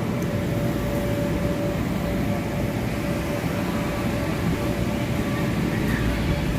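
Steady mechanical drone of the electric blower fans that keep inflatable bounce houses inflated, running continuously with a faint steady hum on top.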